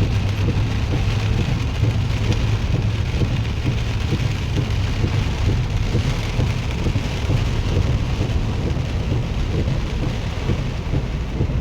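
Heavy rain falling steadily on a pickup truck, heard over a continuous low rumble from the moving truck.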